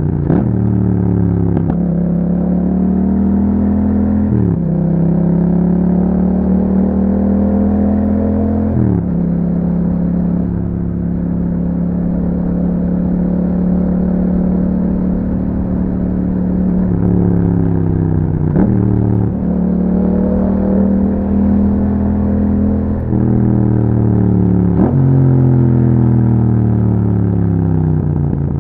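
A 2021 Yamaha MT-07's 689 cc crossplane parallel-twin engine, breathing through an aftermarket Akrapovic exhaust, pulls through the gears. The pitch climbs and then drops sharply at each upshift, several times in the first nine seconds. It holds a steady cruise for several seconds, then pulls through more shifts near the end.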